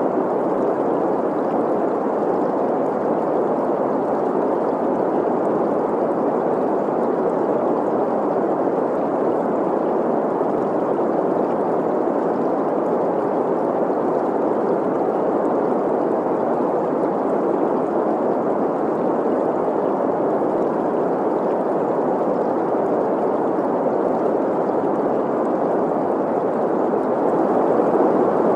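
Synthetic green noise, a steady even hiss centred in the middle range, mixed with a flowing stream.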